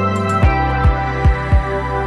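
Background music: sustained chords over a steady low kick-drum beat of about two to three thumps a second.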